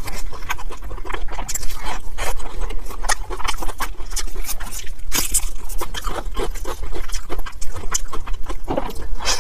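Close-miked chewing and mouth sounds of someone eating soft steamed dumplings: a quick, irregular run of smacks and clicks.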